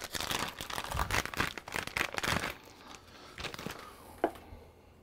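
Plastic packaging crinkling and rustling as a replacement part is unwrapped and handled, busiest in the first couple of seconds and then fainter, with one sharp click a little after four seconds.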